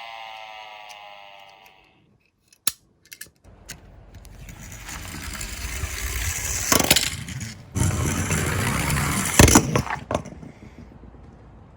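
A toy siren fades out, then after a short pause die-cast Tomica minicars roll down a slope, a rumble that grows louder with several sharp metallic clinks and knocks before it dies away.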